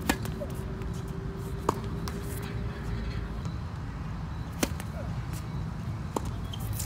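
Tennis rackets striking the ball: four sharp pops, the loudest a serve right at the start and another serve a little past halfway, with a lighter hit between them and another near the end, over a faint steady hum.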